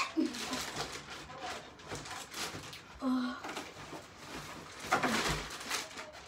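A child's voice in short, scattered sounds rather than words: a brief murmur near the start, a short hum about three seconds in, and a breathy burst around five seconds.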